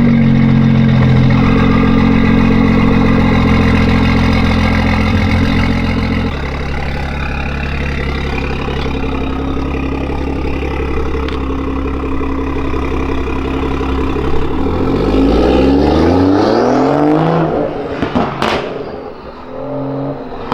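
A stage 2 tuned BMW M140i's B58 turbocharged straight-six through a resonator-delete exhaust with an M Performance back box. It is held at steady raised revs, drops to a lower steady note about six seconds in, then the revs fall away about fifteen seconds in. A run of sharp pops and crackles on the overrun follows near the end.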